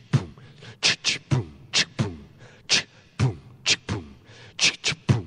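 Beatboxing: a steady groove of vocal kick-drum thumps, each sliding down in pitch, and sharp snare and hi-hat hisses.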